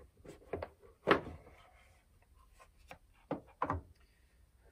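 Product box being opened by hand: the lid and packaging knock and rub against each other and the desk, with a sharp knock about a second in and two more a little after three seconds.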